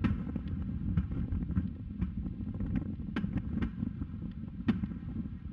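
Distant fireworks going off: a scatter of sharp pops and bangs, the loudest near the end, over a steady low rumble.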